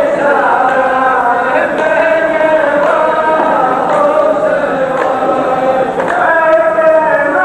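Men's voices chanting a verse together in long, drawn-out sung lines: the chorus of a Saudi muhawara poetry duel taking up the poet's line. A faint sharp beat falls about once a second.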